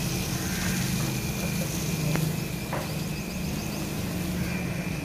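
A steady low engine drone with a faint, thin high tone held above it and a couple of small clicks about two seconds in.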